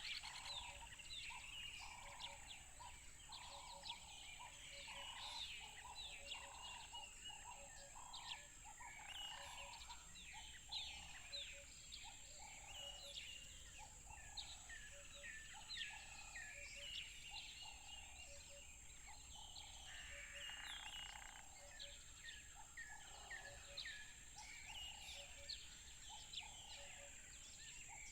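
A chorus of many birds chirping, dense short rapid calls overlapping, with a lower call repeating about once a second underneath and a steady high-pitched hum.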